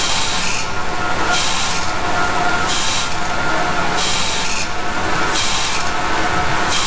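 Grinding wheel of a roll and stabilizer grinder grinding the blade of a rotating oil-field stabilizer, with coolant spraying. A rasping, hissing grind swells about every second and a quarter over a steady machine hum.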